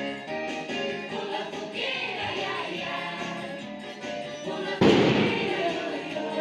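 Festa junina song with sung vocals. A sudden loud bang or crash cuts in about five seconds in and fades over about a second.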